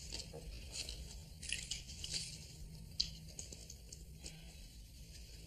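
Quiet rustling and small clicks of hands handling small items, with one sharper click about three seconds in.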